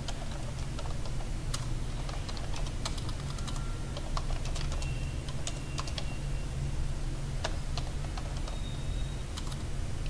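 Typing on a computer keyboard: irregular keystrokes as a line of text is typed, over a steady low hum.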